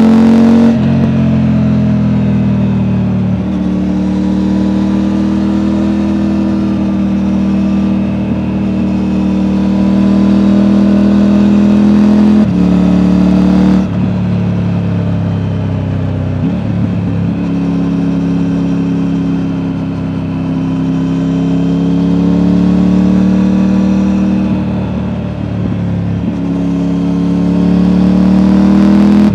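Triumph Tiger 900's inline three-cylinder engine through an Akrapovic exhaust, heard from the rider's backpack while riding. The engine note climbs gradually and drops abruptly several times as gears change, with one jump up in pitch around the middle.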